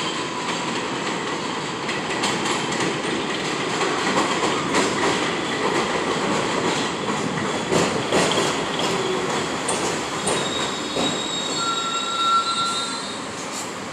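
New York City Subway 6 train of R62A cars pulling into an elevated station: steady rumble with wheels clacking over rail joints, then a brief high squeal as it brakes to a stop near the end.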